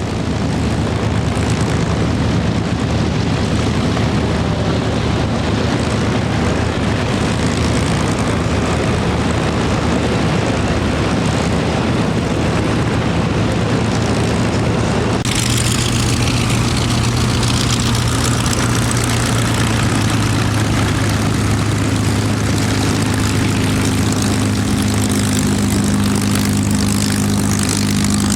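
Piston engines of propeller-driven warbirds running steadily. About halfway through the sound changes abruptly, and afterwards a steady low engine drone is stronger.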